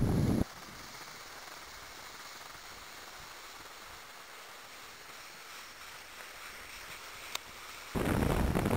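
Wind buffeting the microphone as a loud low rumble that cuts off abruptly about half a second in, leaving a faint steady hiss with a single click near the end. The wind rumble returns abruptly about a second before the end.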